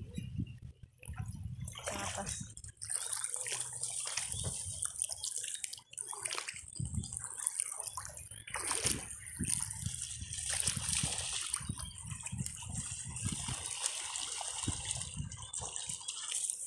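Water sloshing and lapping in short, irregular surges.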